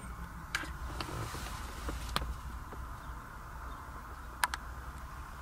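Steady low hum inside a 1996 Toyota Crown's cabin with the engine idling, broken by three sharp clicks about half a second, two seconds and four and a half seconds in.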